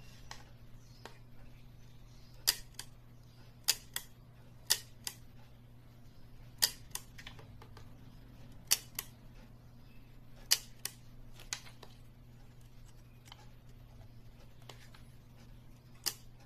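Pronto leaf shutter on a Nagel Vollenda folding camera's Nagel-Anastigmat lens, clicking sharply as it is cocked and fired by hand, about eight times, many loud clicks followed a moment later by a softer one.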